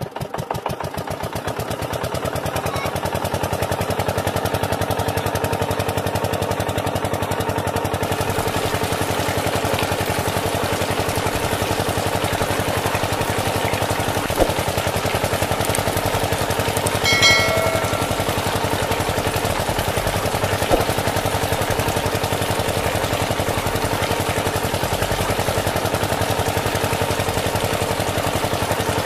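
Miniature model diesel-engine water pump running with a fast, steady engine-like clatter. It builds up over the first two seconds and then holds even. A short high chirp sounds about two-thirds of the way through.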